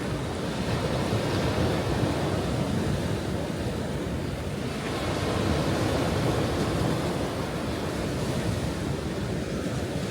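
Ocean waves breaking and washing on a shore, the surf swelling and easing in slow surges, with wind on the microphone.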